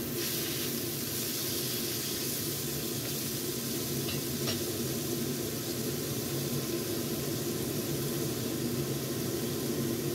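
Sliced bitter melon sizzling steadily in a hot oiled wok as it sautés toward half-cooked.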